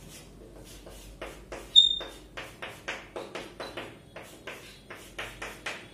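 Chalk on a blackboard: quick strokes and taps, several a second, as formulas are written. About two seconds in, the chalk gives one short high squeak, the loudest sound.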